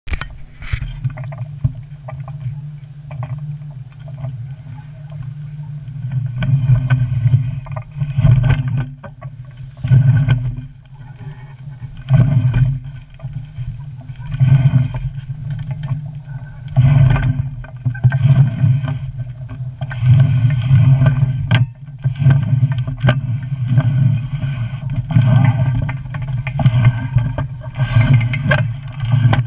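Schooner under way, heard from a camera high on the fore gaff: a low rumble of wind and motion that swells and fades every second or two, with occasional sharp knocks.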